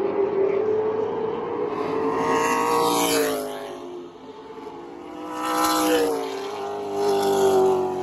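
Outlaw late model stock cars' V8 engines running at speed past on the track. The engine note swells louder about three times, dropping in pitch as each car goes by.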